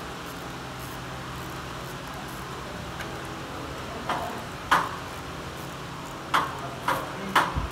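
Hand tools clinking on metal as the six 12 mm bolts holding the oil pump of an F4A232 automatic gearbox are worked loose with a socket wrench. There are about five sharp clinks in the second half over a steady low hum.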